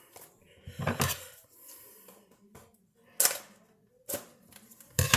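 Cardboard blaster box of trading cards being worked open by hand: irregular crackles, scrapes and sharp taps of the packaging, with loud ones about a second in, about three seconds in and near the end.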